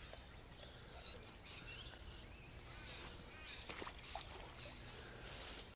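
Quiet riverside ambience with faint bird chirps and a few soft clicks.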